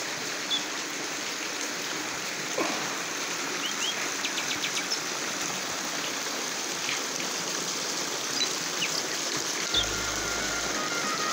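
Small waterfall splashing over rocks into a shallow pool, a steady rush of running water, with a few short bird chirps over it. Music comes in near the end.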